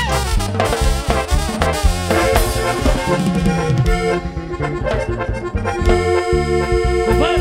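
Live regional Mexican band playing an instrumental passage: brass with a tuba bass line, drums, and an accordion-like lead melody. About six seconds in, the band settles into long held chord notes over the beat.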